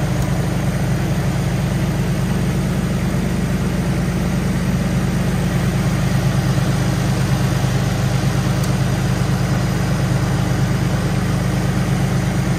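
Lexus GS300's 2JZ-GE 3.0-litre inline-six engine idling steadily with the hood open, still cold from a cold start in below-freezing weather.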